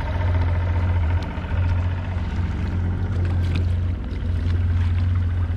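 A small boat's outboard motor runs at low speed with a steady low hum, along with a few light knocks and splashes of water against the hull.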